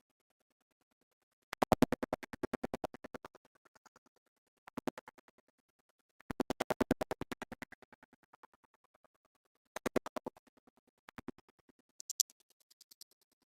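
Rapid mechanical clicking in six bursts, about a dozen clicks a second, each burst starting loud and fading out, with silence between.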